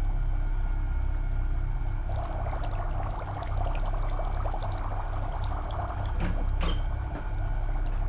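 Water in a saucepan bubbling on the stove as it comes to the boil, the fizzing bubbling setting in about two seconds in over a steady low hum. Two sharp clicks come near the end.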